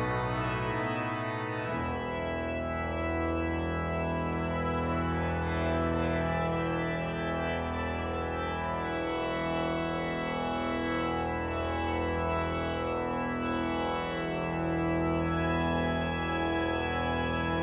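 Church organ playing slow sustained chords over a deep pedal bass. The bass drops out briefly about a second in, then returns, with the chords changing every second or two.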